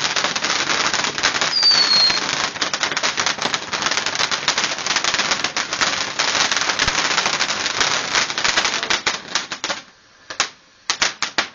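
Fireworks crackling in a rapid, dense string of small bangs, with a short falling whistle about two seconds in. The crackling breaks off for a moment near the end, then starts again.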